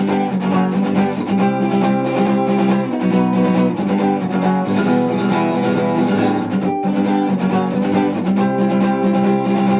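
Acoustic guitar strumming chords, an instrumental break in the song, with a momentary gap about seven seconds in.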